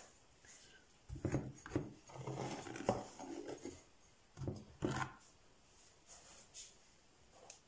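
Handling noises in a kitchen: rubbing and scraping at the counter, in a long stretch starting about a second in and a shorter burst about four and a half seconds in.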